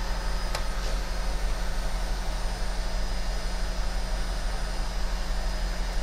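Steady fan-like whooshing noise with a low constant hum.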